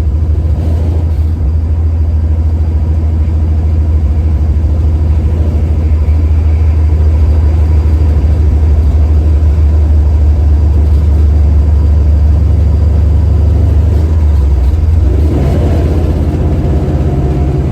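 A 1970 Chevy Nova's engine and exhaust running under way, with a loud, steady low drone. About fifteen seconds in the engine note changes and more higher notes come in.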